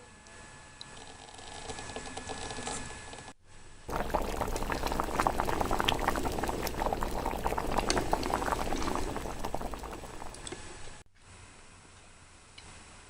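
Liquid bubbling and crackling hard in a miniature cooking pan for about six seconds, starting and stopping abruptly. Before it there are quieter scattered clicks and a faint trickle of liquid.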